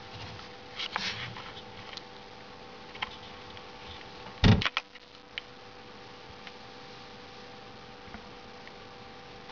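Long metal feeding tweezers being handled: a few light clicks, then a sharp cluster of clattering knocks about four and a half seconds in, over a steady faint hum.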